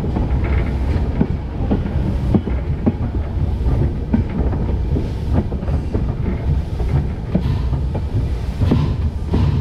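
Pennsylvania Railroad #331 steam locomotive rolling along the track, heard from its cow catcher close to the rails: a steady low rumble with irregular clicks and knocks of the wheels over the rail joints.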